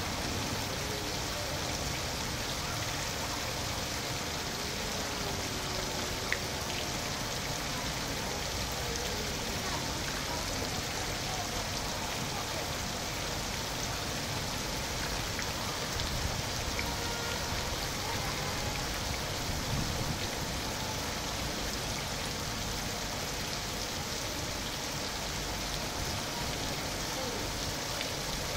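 Fountain jets splashing steadily into the water of a stone basin, a constant rain-like hiss of falling water.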